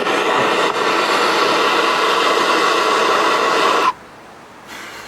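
Steady hissing blow of a heating tool working on the outboard powerhead's seized head bolts, hot enough to singe the tape insulation on nearby wires. It shuts off sharply about four seconds in.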